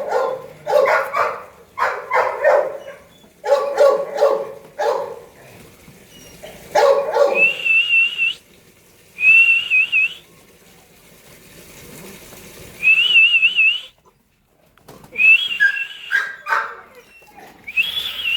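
Great Dane puppies barking in a quick run of short, fairly high barks, then again near the end. Between the barks come several high, wavering whistle-like tones, each about a second long.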